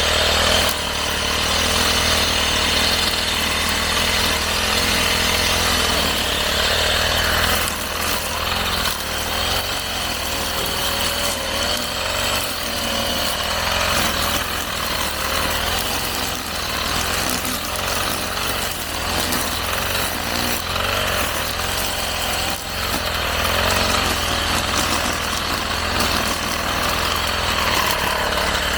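Motorised brush cutter cutting grass and weeds, its small engine running steadily with a slightly wavering pitch as it meets the growth.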